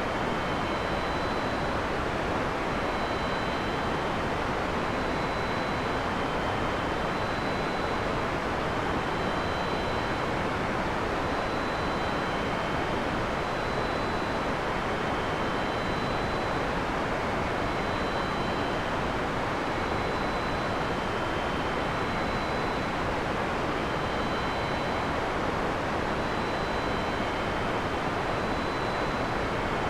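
Steady heavy rain, an even hiss with no thunder. Faint, short high-pitched tones recur every second or two.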